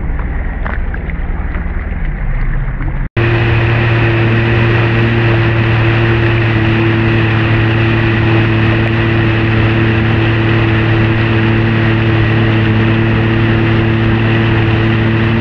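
Sea-Doo Fish Pro jet ski running underway at steady speed. A rumbling, wind-buffeted stretch cuts off abruptly about three seconds in and gives way to a steady, even engine drone that holds unchanged.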